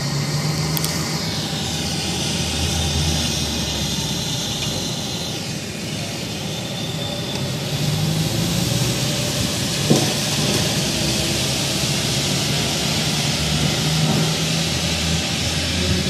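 A low, slightly wavering drone over a steady hiss: an unexplained hum heard in the sky over a town. A single sharp click about ten seconds in.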